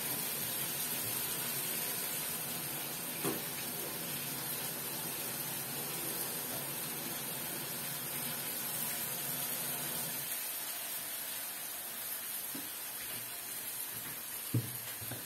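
Mushrooms sizzling as they fry in a pan, a steady hiss that thins about ten seconds in, with a couple of light knocks near the end.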